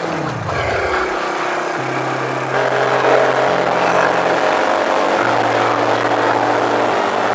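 Single-cylinder four-stroke engine of a Chinese replica Honda Monkey running while riding: the revs drop sharply in the first second, then it holds a steady speed, with wind rush, picking up a little about two and a half seconds in.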